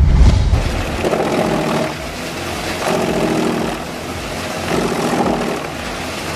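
A wood chipper running under load, its engine note shifting every second or so as wood is fed through. There is a heavy low surge at the start.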